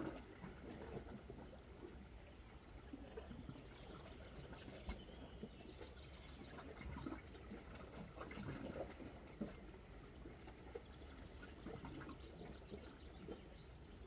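Faint, irregular lapping and trickling of small waves against a rocky shore, over a low steady rumble.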